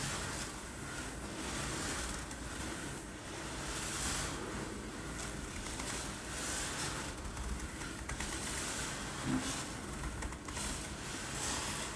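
Uncooked rice rattled and rolled about, a dry rushing hiss that swells and fades every second or so like waves breaking on a beach.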